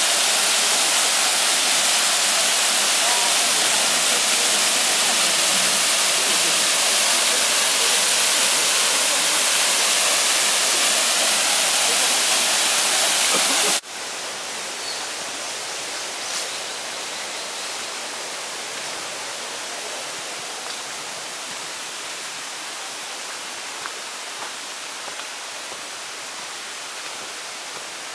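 Small waterfall cascading down a rock face into a pool: a loud, steady rush of falling water. About fourteen seconds in it cuts off abruptly to a fainter, steady rush of running water with a few faint ticks.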